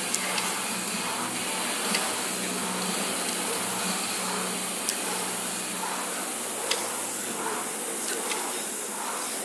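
Concept2 air rowing machine's flywheel fan whooshing steadily, swelling with each drive stroke about every second and a half, with a few sharp clicks from the machine.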